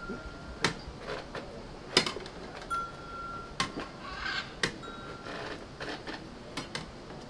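Turkish ice cream vendor's long metal paddle clacking against steel serving tubs and lids: a string of sharp metallic clacks at irregular intervals, a few of them followed by a brief high ringing tone.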